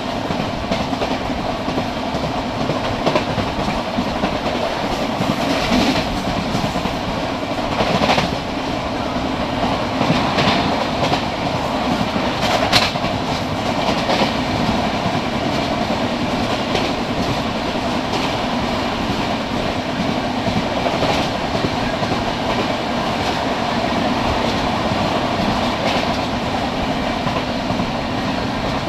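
Express passenger train running at speed, heard from alongside the coaches: a steady rumble and rush of wheels on rail, with a scattering of sharp clacks as the wheels pass over rail joints, the loudest a little under halfway through.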